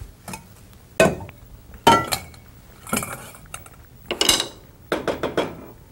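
Pots, bowl and sieve knocking and clinking as they are handled to strain tomato sauce: a series of sharp knocks, one with a brief ring about four seconds in.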